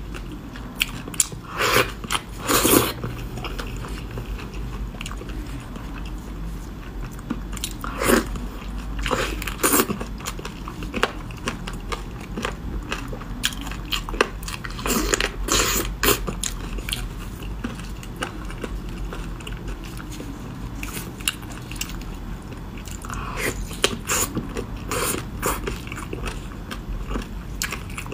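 A person eating close to the microphone: biting and chewing soft seafood in sauce, with wet, crackly clusters of sound every few seconds.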